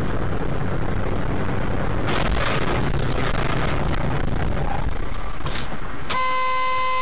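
Road and engine noise inside a moving car, a steady rumbling hiss recorded by a dashcam's built-in microphone. About six seconds in, a steady car horn note starts and holds.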